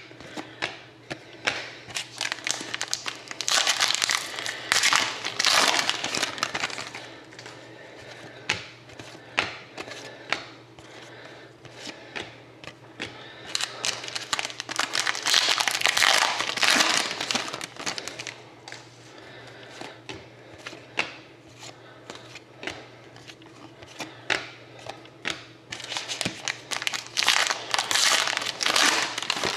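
Trading-card pack wrappers crinkling and rustling as packs are opened and cards handled, with scattered small clicks. There are three louder spells of rustling.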